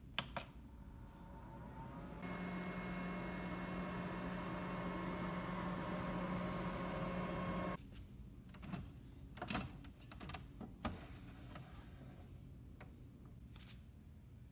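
Two button clicks on the Brod & Taylor Sahara folding dehydrator's control panel, then its fan running with a steady hum for about five seconds, cutting off abruptly about eight seconds in. A few light knocks and clicks of handling follow.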